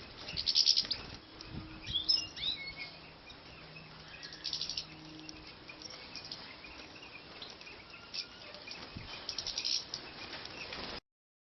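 Small finches chirping, with short rising and falling call notes and a few quick bursts of rapid twittering; the sound cuts off abruptly near the end.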